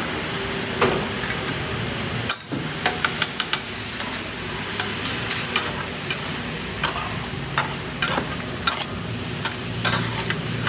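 Fried rice sizzling on a hibachi flat-top griddle, with irregular sharp clicks and taps of a metal spatula on the griddle, coming thicker in the second half.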